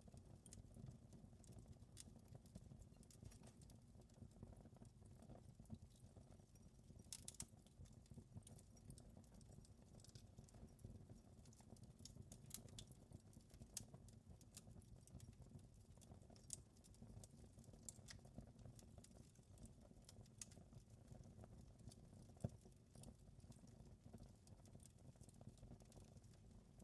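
Wood fire in a fireplace crackling faintly: irregular sharp pops and snaps over a low, steady rumble, with one louder pop late on.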